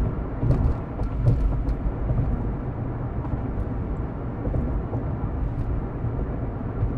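A steady low rumbling noise with a few faint clicks scattered through it.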